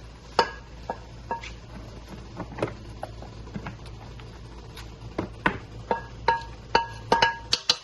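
Irregular clinks and knocks of crab pieces or a utensil against a metal pan. Each strike rings briefly at the same couple of pitches, and they come faster in the last few seconds.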